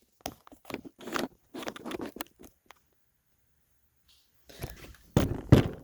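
Clicks, scrapes and knocks of a Milwaukee M18 cordless jobsite fan's plastic housing being handled. The sounds come in two spells with a pause of about two seconds between them, and the loudest knocks come near the end.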